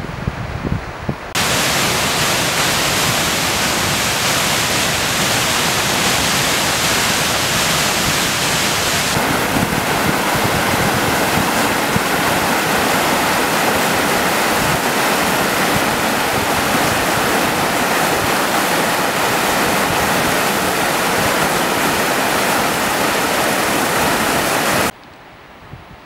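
Fast mountain river rushing over rocks in whitewater rapids: a loud, steady rush of water that starts suddenly after a second or so of wind gusting on the microphone, and cuts off abruptly about a second before the end.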